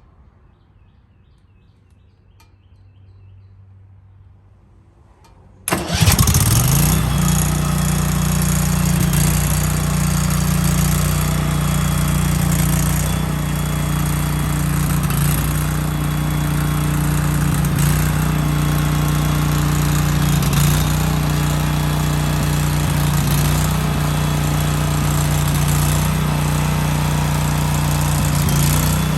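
Briggs & Stratton Vanguard 14 hp engine on a gas generator starting up about six seconds in, catching suddenly, then settling within a second into steady running.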